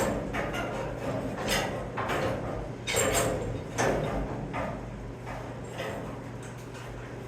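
A series of irregular knocks and bangs as a box held in a heavy-duty welding F-clamp is struck to show that the clamp holds it fast, the blows growing fainter after about four seconds, over a low steady hum.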